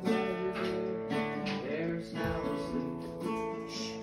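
Acoustic guitar strummed in chords, a fresh strum about once a second with the chord ringing on between.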